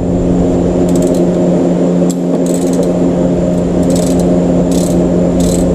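Socket ratchet clicking in short runs while a new spark plug is threaded by hand into the cylinder head, over a loud steady hum.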